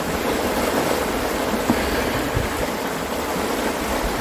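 River rapids rushing, a steady, unbroken wash of water noise.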